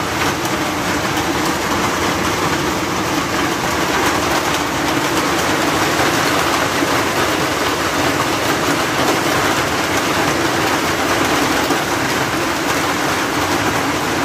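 Heavy hailstorm with rain: a steady, dense clatter of countless hailstones striking the ground and nearby hard surfaces.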